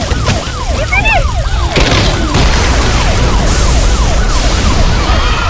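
Fire-engine siren in quick rising-and-falling sweeps over a low rumble, with bursts of hissing water spray in the middle.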